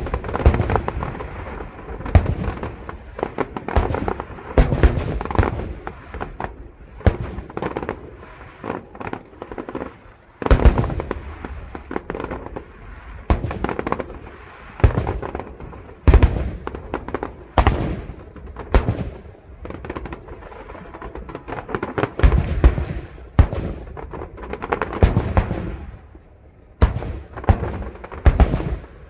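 Aerial fireworks display: a long, irregular series of shell bursts, with booms and crackling that come sometimes singly and sometimes in quick clusters, and brief lulls between volleys.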